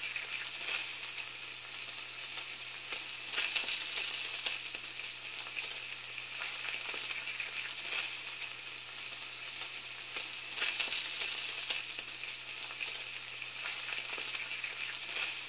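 Food sizzling and crackling in a hot pan: a steady hiss with scattered louder pops, over a faint low hum.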